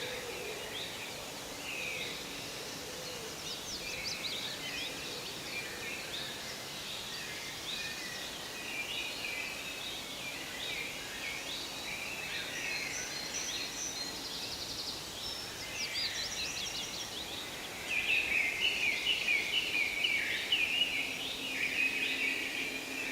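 Forest birdsong: several small songbirds chirping and trilling over a steady background hiss. About three-quarters of the way through, a nearer bird starts singing louder with quick repeated notes.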